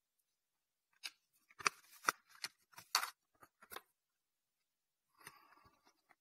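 Papers being handled at a podium microphone: a quick run of faint, short rustling clicks, then a soft rustle near the end.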